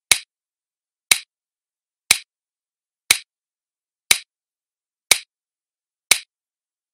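Countdown timer sound effect ticking once a second, seven sharp, short ticks marking the seconds left on the clock.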